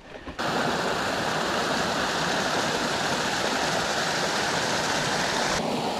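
Rushing water of a mountain stream, a steady, even rush that starts suddenly and whose brighter part cuts off just before the end.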